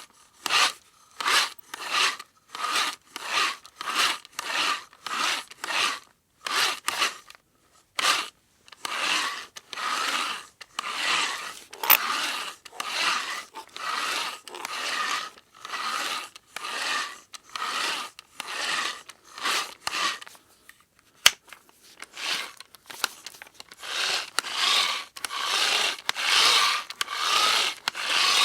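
Hand-operated manual drill cranked in repeated strokes, each a rasping grind with a faint steady whine. The strokes are short and choppy at first, then longer and almost continuous, with a couple of sharp clicks along the way.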